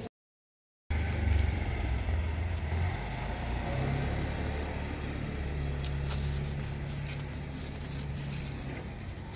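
A steady low motor hum, like an engine running nearby. It begins after a short gap of dead silence just after the start.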